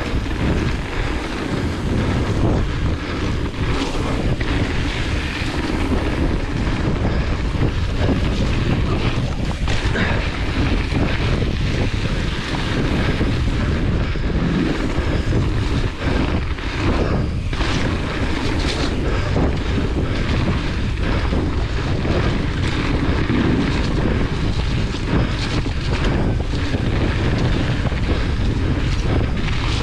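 Wind buffeting a GoPro's microphone and mountain-bike tyres rolling fast over a dirt trail, with scattered knocks and rattles from the hardtail bike going over bumps.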